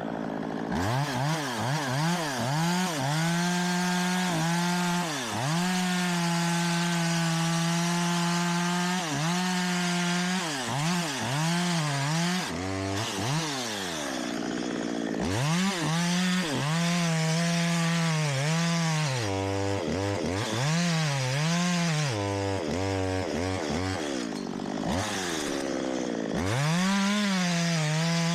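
Two-stroke chainsaw cutting wood, the throttle opened and eased again and again, so the engine pitch climbs to a held high note during each cut and drops back between cuts. Near two-thirds of the way through it runs lower, near idle, for a few seconds before revving up again.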